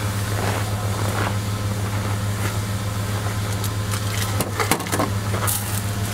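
Jetboil gas camp stove heating water: a steady hiss of the burner over a constant low hum. A few light clicks of gear being handled come about four and a half seconds in.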